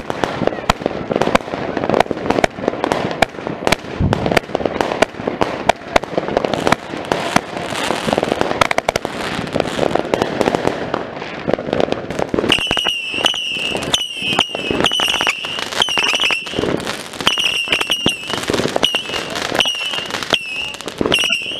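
Consumer firework cake (box) going off close by: rapid, irregular crackling and banging shots. A little over halfway in, a high beeping tone joins the bangs and keeps repeating a little more than once a second.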